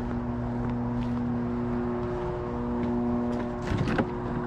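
A steady low hum runs throughout. Near the end comes a short clatter as the lid of a wooden drop mailbox is opened.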